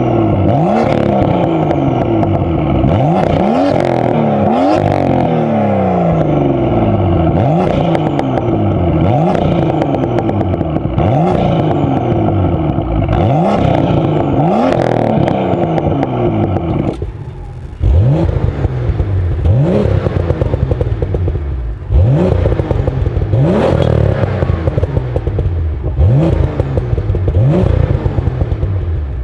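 BMW M2's N55 turbocharged straight-six through a 3.5-inch straight-pipe valved exhaust with the flaps open, revved again and again in quick rising blips that fall back each time, with crackles and pops on the overrun. There is a brief dip in the sound about two-thirds of the way through before the revving resumes.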